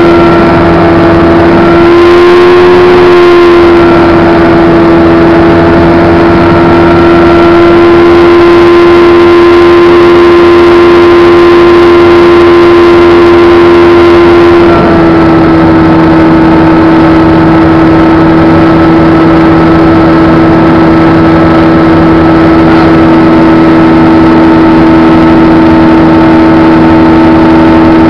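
Lightwing ultralight's engine and propeller droning steadily at cruise, loud inside the cabin, with air rushing around it. About 15 s in the engine note steps down slightly in pitch and stays there.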